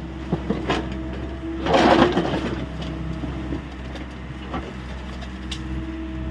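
Hyundai 85A SMART excavator's diesel engine running steadily under work. About two seconds in there is a louder rushing burst from the digging, with a few light knocks around it.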